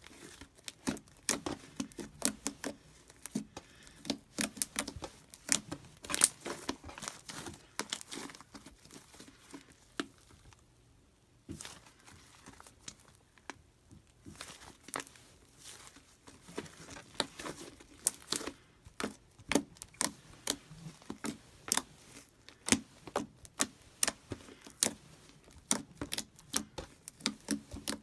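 Hands squishing and pressing slime, giving a dense, irregular run of sticky clicks and pops, with a brief lull about ten seconds in.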